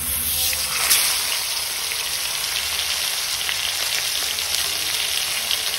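Karimeen (pearl spot fish) sizzling in hot oil in a pan: a steady crackling hiss, with a louder flare about a second in.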